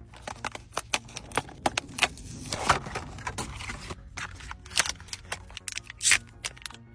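Irregular clicks, taps and rattles of small objects being handled and set down, with a few longer rustling or pouring noises, about two and three quarters and six seconds in.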